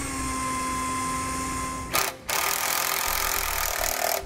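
Cordless drill with a 5/32-inch bit running at a steady whine while drilling a pilot hole. About two seconds in it stops with a click, then runs again with a rougher, noisier sound as a number 12 self-tapping screw is driven in to mount the breakaway battery box.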